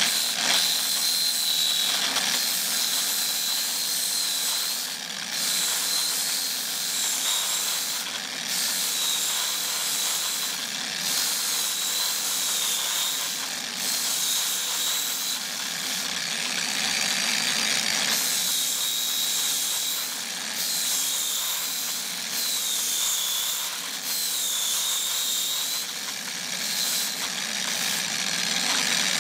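Bosch X-Lock angle grinder with an abrasive disc, running steadily while a chip on a circuit board is ground down against it. Its motor whine dips in pitch now and then, and the grinding hiss briefly breaks off every couple of seconds.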